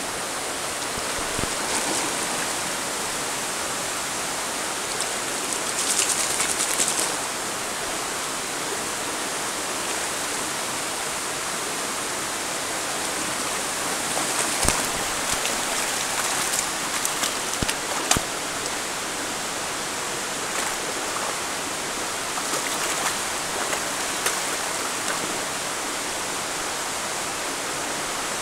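Shallow stream running steadily over pebbles, with short bursts of splashing as a dog wades and paws through the water: the loudest about six seconds in and again between about fourteen and eighteen seconds, with a few sharp splashes near the end of that stretch.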